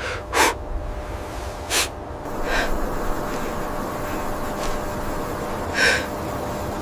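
Several short, sharp breaths over a steady low rumble, the loudest about half a second in.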